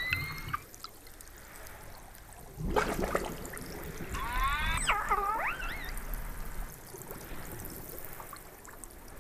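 Killer whale calling underwater: a whistle trailing off at the start, a short burst of clicks about three seconds in, then a wavering, rising-and-falling pulsed call a couple of seconds later, over a steady underwater noise.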